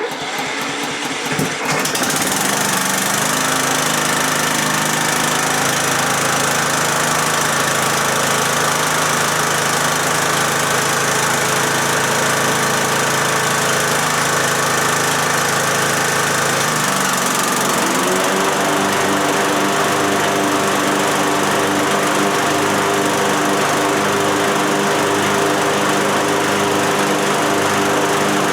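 Husqvarna riding lawnmower's engine starting, catching within about two seconds and then running steadily. About seventeen seconds in it revs up to a higher steady speed. This is a test run after a new drive belt was fitted.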